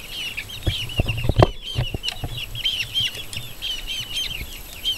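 Young chicks peeping: a continuous stream of short, high, falling peeps. A few knocks come about a second in.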